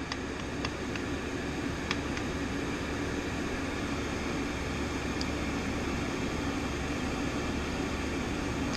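Diesel air heaters running: a steady whoosh of blower and combustion over a low hum, with a few faint ticks in the first couple of seconds.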